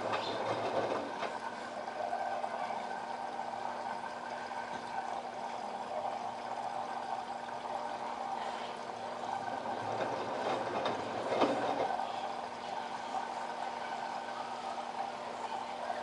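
LG WD12596 11 kg front-loading washing machine running mid-cycle: a steady motor hum with water swishing in the drum, and one louder swish about eleven seconds in.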